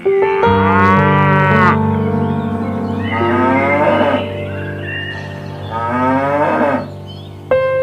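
An animal giving three long, drawn-out calls, a few seconds apart, over steady background music.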